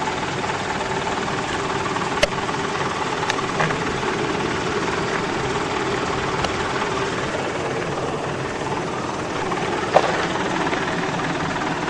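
An off-road 4x4's engine idling steadily, with a couple of short knocks, the sharpest near the end.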